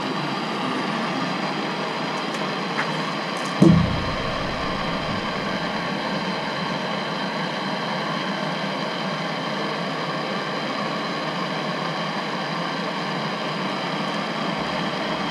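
Handheld gas torch flame burning steadily as it heats copper pipe fittings for soldering, with a single thump a little under four seconds in.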